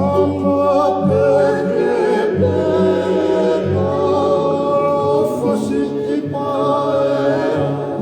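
A group of voices singing a Tongan faikava song in harmony, with a guitar keeping low notes underneath.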